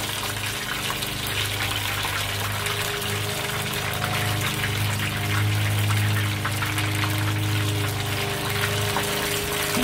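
Battered squid rings deep-frying in a pan of hot oil: a steady sizzle full of tiny crackles and pops. A steady low hum runs underneath.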